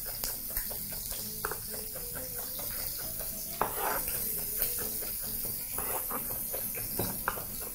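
Kitchen knife chopping diced red onion on a wooden cutting board: irregular sharp taps of the blade on the board, over a steady sizzle of pork ribs frying on a griddle.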